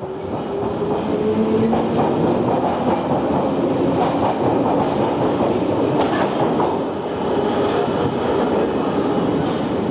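London Underground tube train running through the station: a steady loud rumble and rail clatter, with a faint motor whine rising in pitch over the first couple of seconds.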